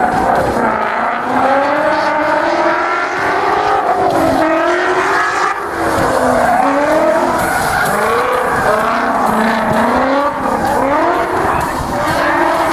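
Ford Mustang drift car revving hard through a drift run, the engine pitch climbing and dropping again and again, with the rear tyres skidding and squealing as it slides sideways.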